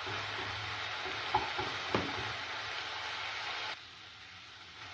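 Onion, capsicum and tomato masala sizzling in a nonstick kadai as a wooden spatula stirs it, with two light knocks of the spatula against the pan. The sizzle drops sharply near the end.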